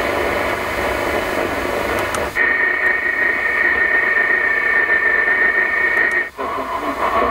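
Medium-wave AM car radio (Audi MMI Basic) tuned between stations, giving hissy static with no clear programme. The sound drops out briefly twice as the tuner steps up 9 kHz: about two seconds in, from 1476 to 1485 kHz, and again near the end. While on 1485 kHz a steady high whistle sits over the static.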